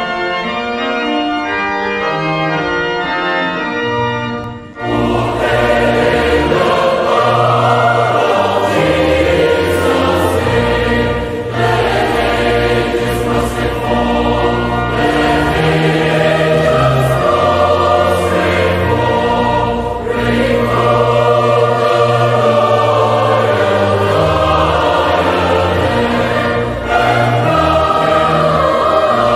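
Organ playing alone, then from about five seconds in a choir singing with organ accompaniment.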